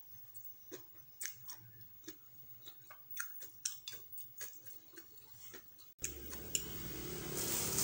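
Close mouth sounds of someone chewing a mouthful of fried noodles: scattered soft wet clicks and smacks, several a second. About six seconds in, these give way abruptly to a steady hiss.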